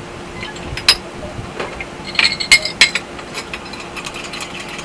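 Metal spoon clinking against the sides of a glass measuring cup while stirring milk into the liquid. There is one sharp clink about a second in, a quick run of clinks around the middle, and lighter taps after that.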